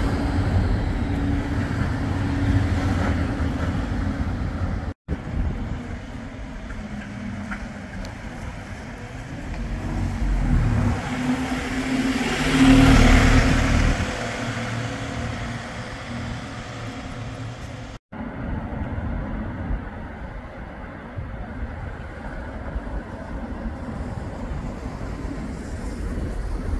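Street vehicle noise in three edited takes. First a Bombardier Flexity 2 tram runs close by. Then a single-deck bus drives past, its engine loudest about halfway through. Then comes quieter street noise. Each take ends with a sudden cut.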